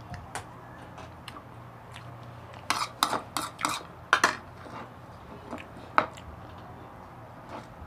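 A spoon clinking and scraping against a bowl: a quick run of about half a dozen sharp knocks about three seconds in, then one more near six seconds.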